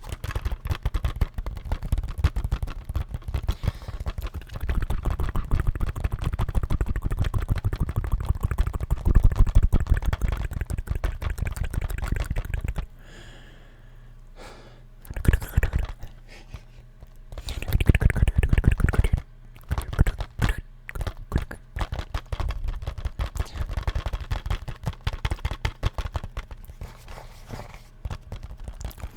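Fast fingernail tapping and scratching on a plastic video game case, in dense runs of quick clicks with a short pause about halfway through.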